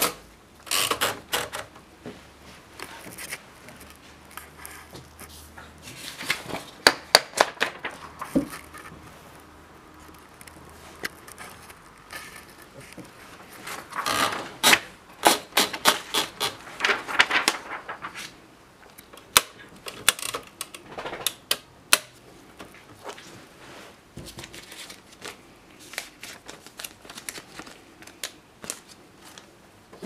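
Torpedo 15 portable typewriter being handled: irregular mechanical clicks and clatter from its carriage and keys, with a few denser runs of rapid clicks.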